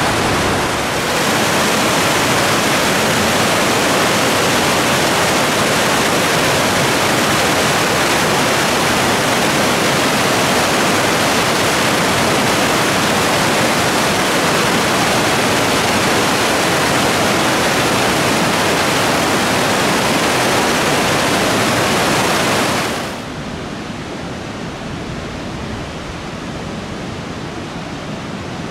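Glacial meltwater river rushing over rapids and boulders, a loud steady rush of water. Near the end it drops suddenly to a quieter, duller rush.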